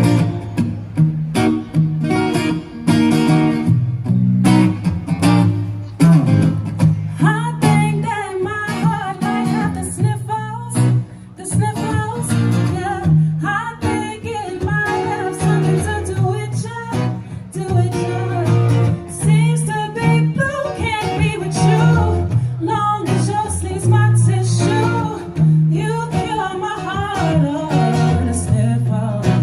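Instrumental intro of a song played live: guitar over steady low notes, with a melodic line coming in about eight seconds in.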